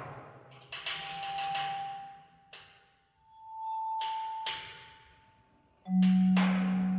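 Slow, sparse contemporary chamber music for pianos and percussion: long ringing vibraphone-range notes that swell and fade over shimmering washes, then a loud low note about six seconds in that keeps ringing.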